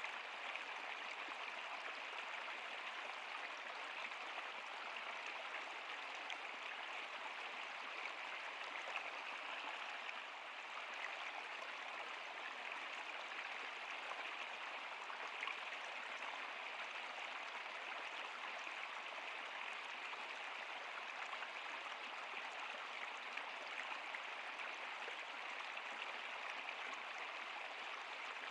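Flowing stream water: a steady rush with fine splashes.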